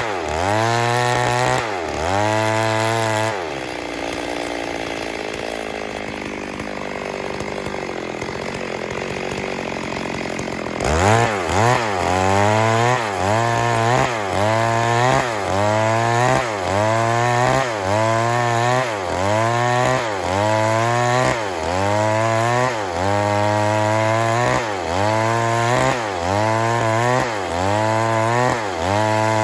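Stihl MS 382 two-stroke chainsaw running under load, its engine pitch repeatedly dipping and recovering about once a second as it cuts into wood. From about 4 to 11 seconds in it changes to a steadier, rougher sound before the rhythmic dipping returns.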